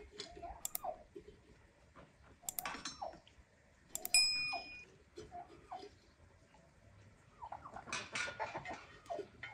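Chickens clucking softly in short calls every second or so. About four seconds in comes a single sharp metallic clink that rings briefly, and near the end there is rustling and knocking as wood and metal things are handled.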